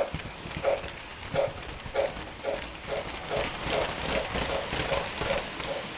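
MTH RailKing Pennsylvania Mikado model steam locomotive's electronic sound system playing rhythmic steam chuffs. The chuffs quicken from about one and a half to nearly three a second as the engine gathers speed.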